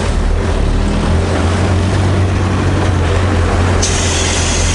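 Off-road competition vehicle's engine running with a steady low rumble, heard from inside the open cab. A hiss comes in near the end.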